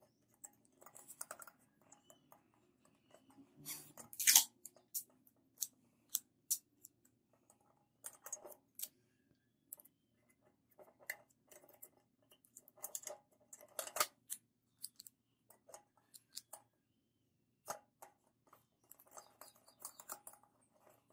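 Masking tape being pulled, torn and pressed onto a metal hurricane lantern: scattered papery crackles, rips and light handling taps, the loudest a short sharp burst about four seconds in.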